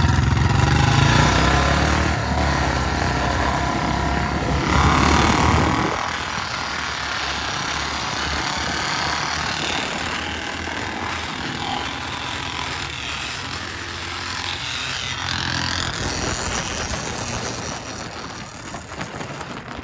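Royal Enfield Bullet single-cylinder motorcycles running at speed, their engine sound strong for about the first six seconds and then dropping away suddenly. After that, wind rush on the microphone and road noise from the moving motorcycle dominate over a fainter engine.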